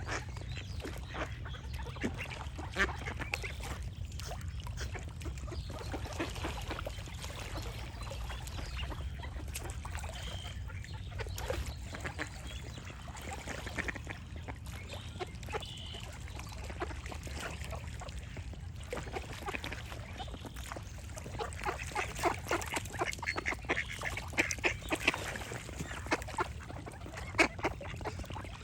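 Ducks quacking on and off, the quacks coming thick and fast in the last several seconds, with a few short bird calls between them over a steady low rumble.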